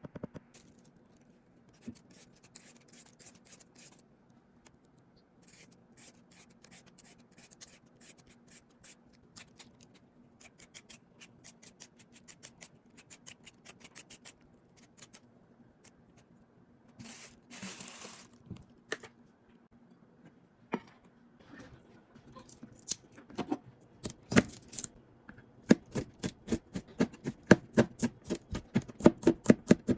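Knife cutting chayote on a cutting board: a run of light, irregular cuts with a brief scraping rustle midway, then quicker, louder chopping strokes near the end, several a second, over a faint steady hum.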